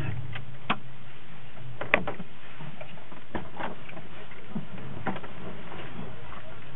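Scattered clicks and knocks inside a Honda's cabin as the driver's door is opened and he climbs out. The sharpest click comes about two seconds in.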